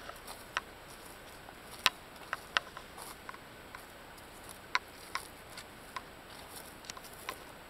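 Irregular sharp clicks and ticks, about eight of them at uneven spacing, over a faint steady hiss. The loudest comes about two seconds in.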